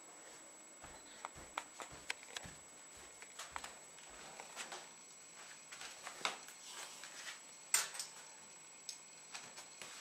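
Handling noise as the camera is moved about indoors: scattered light clicks and knocks, some with soft thumps, the sharpest about three-quarters of the way through, over a faint steady high tone.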